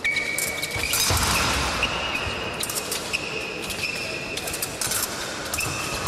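Fencers' footwork thudding and stamping on the piste, with sharp metallic clicks of blades meeting during a bout. The loudest thump comes about a second in.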